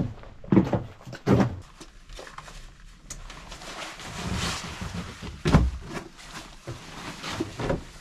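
Several knocks and thuds, the loudest about half a second, a second and a half, and five and a half seconds in, with a rustle in the middle.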